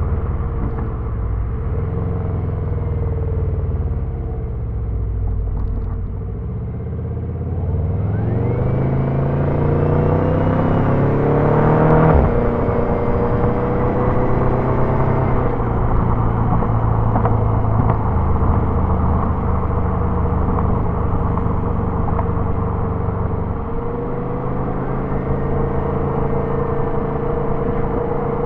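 Turbocharged Subaru engine pulling hard: from about a quarter of the way in, its pitch climbs for several seconds with a rising turbo whistle above it, then drops suddenly near the middle as the throttle comes off or a gear changes. It then runs steadily at cruising speed.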